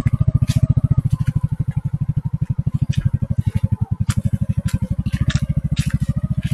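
Bajaj V15 motorcycle's single-cylinder engine running at low revs with a steady chugging beat, about a dozen beats a second, as it rides over a rough dirt track, with sharp rattles and knocks from the bike jolting over the ground every second or so.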